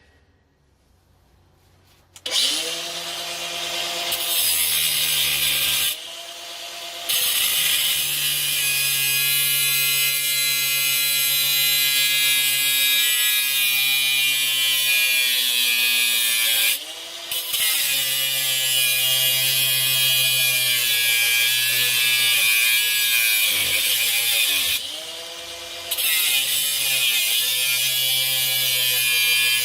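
Makita DGA452Z 18V cordless angle grinder with a Norton cutting disc starting about two seconds in and cutting through a link of a 12 mm steel security chain: a steady motor whine under a loud grinding hiss, easing off briefly three times.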